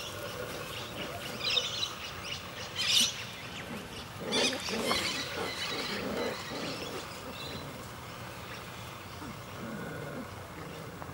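Border Collie puppies making play noises as they wrestle: short growls and yips, busiest from about four to seven seconds in.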